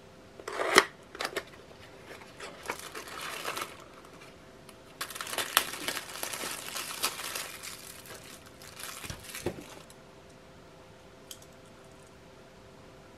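Clear plastic packaging bag crinkling and rustling as a folding camping cutlery set is unwrapped, with the longest stretch in the middle. Near the start there is a sharp click and rustle of the cardboard box being handled.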